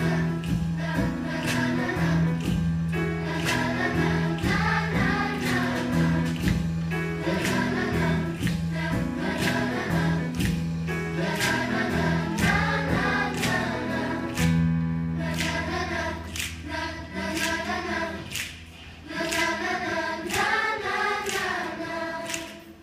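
A choir of girls and young women singing a song in parts over held low keyboard notes and a steady strummed accompaniment. The music thins out and dies away near the end.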